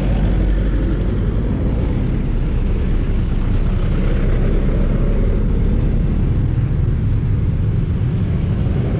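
Motorcycle engine idling: a steady low rumble with no change through the stretch.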